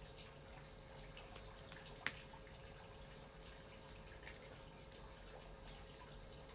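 Near silence: faint room tone with a steady low hum and a few small clicks, the sharpest about two seconds in, from hands handling nail polish strips.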